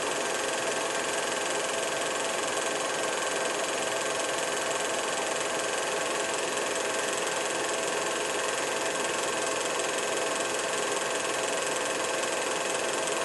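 Steady mechanical hum with a constant hiss, unchanging throughout, with a few fixed whining tones in it.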